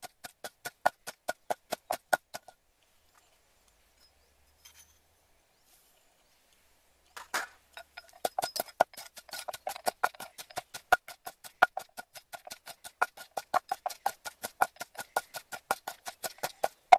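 Wooden pestle pounding chili paste in a mortar, about four knocks a second, each with a hollow ringing tone. The pounding stops after about two seconds, leaves a few seconds of near quiet, and starts again about seven seconds in.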